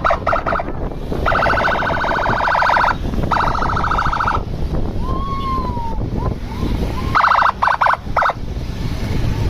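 Tour bus's telolet (basuri) musical horn sounding in warbling blasts: a quick stutter, two long blasts, then a fast stuttered series near the end, over a steady low rumble.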